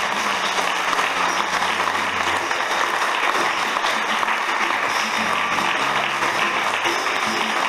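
Audience applauding steadily, with instrumental music playing underneath.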